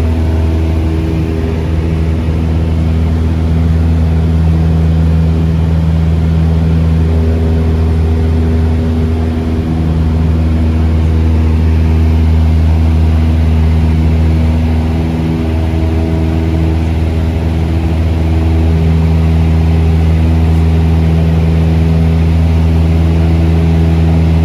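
Cessna 172's piston engine and propeller running steadily at climb power just after takeoff, a constant low drone heard inside the cabin, with only slight swells in loudness.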